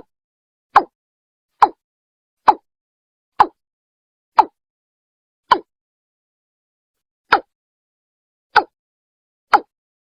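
Watercock (Gallicrex cinerea) calling: a string of short, hollow notes about one a second, with one longer pause partway through. It is a recorded call played back as a lure for the birds.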